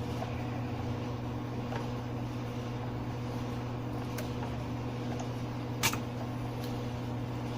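Steady mechanical hum with a few light clicks, the sharpest about six seconds in.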